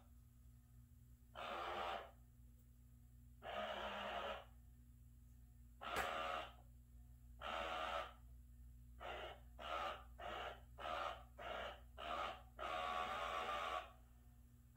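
Loud breathing close to the microphone. There are a few long breaths about two seconds apart, then a quick run of about seven short breaths, then one longer breath near the end.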